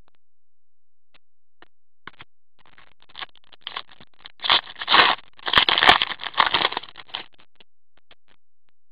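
Trading cards being handled in cotton-gloved hands. After a quiet start come a few scattered soft clicks, then a couple of seconds of dense rustling and scraping as the cards and gloves slide against each other, stopping about a second before the end.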